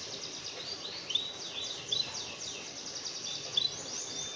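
Songbird singing a fast run of high, down-slurred whistles mixed with short hooked notes, a few notes louder and sharper than the rest, over a faint steady hiss; a song recording used to train canaries to sing.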